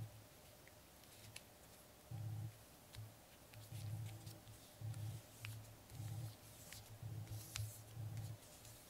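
Square origami paper being folded and creased by hand, giving a few sharp little paper clicks and crackles. Under them runs faint background music with recurring low bass notes.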